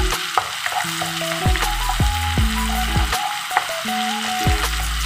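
Minced garlic sizzling steadily in melted butter in a nonstick wok, stirred with a spatula, with a few light ticks. Background music with sustained low notes plays over it.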